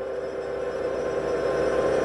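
A sustained, dark droning chord from a horror film score, swelling steadily louder.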